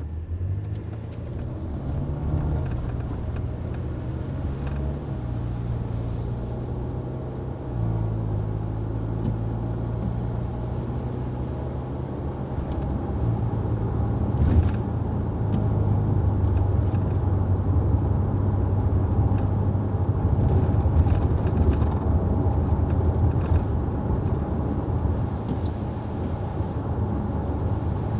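Road vehicle driving: a steady engine hum with road noise. The engine note steps to a new pitch several times, about 2, 5, 8 and 13 seconds in.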